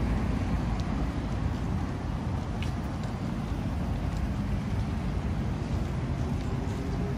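City street ambience: a steady low rumble of road traffic, with a few faint clicks.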